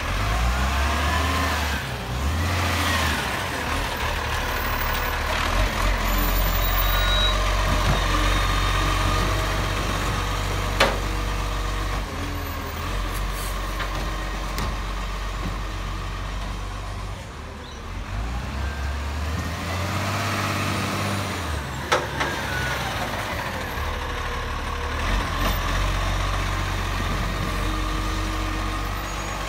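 Dennis Eagle side-loader garbage truck: the diesel engine runs and revs up and down as the hydraulic arm reaches out and lifts a wheelie bin. A whine rises and falls twice, and there are two sharp knocks, about 11 and 22 seconds in.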